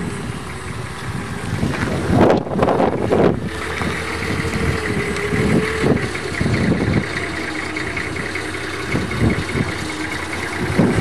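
A four-wheel-drive vehicle's engine idling steadily, with a louder burst of low rumbling noise about two seconds in.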